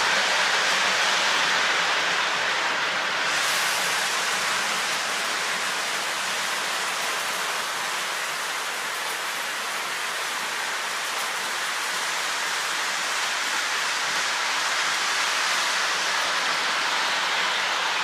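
Steady rushing rumble of O-gauge model trains running on the layout's track, wheels rolling on the rails with no separate clicks standing out.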